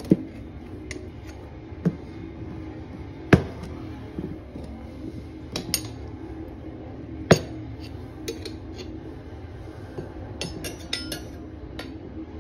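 Steel tire irons clinking and knocking against a dirt bike's spoked rim while the tire bead is levered onto it: scattered sharp metal clinks a second or two apart, the loudest about a third and about halfway through, with a quick run of ringing clinks near the end.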